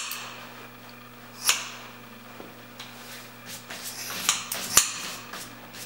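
Scissors snipping through hair in a few short, sharp snips, one about a second and a half in and a cluster near the end, over a low steady hum.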